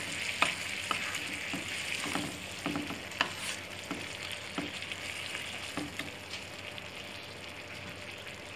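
Chicken and capsicum in tomato sauce sizzling in a pan while a spoon stirs them, with irregular scrapes and taps against the pan. The taps thin out about six seconds in and the steady sizzle carries on.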